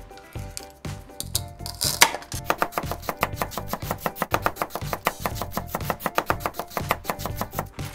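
Plastic toy knife cutting and chopping toy fruit on a plastic toy cutting board: rapid hard clicks, several a second, growing dense from about two seconds in. Light background music plays under it.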